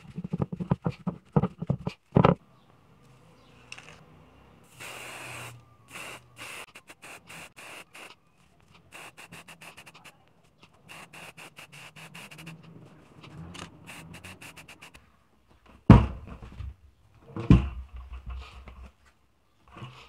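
Tissue rubbed in quick strokes over a glued PVC-and-aluminium disc. Then an aerosol spray-paint can hissing in one longer spray and many short bursts, and two loud thumps near the end.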